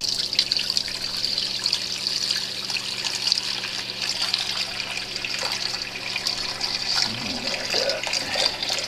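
Kitchen faucet running a steady stream of water into a sink.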